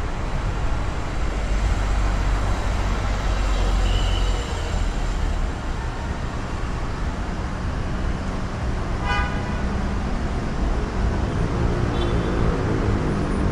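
Steady road traffic noise with a low rumble, and a single brief high toot about nine seconds in.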